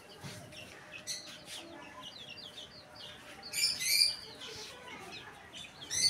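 Young chicken chicks peeping in high chirps, on and off, with a loud flurry of calls about four seconds in and another near the end.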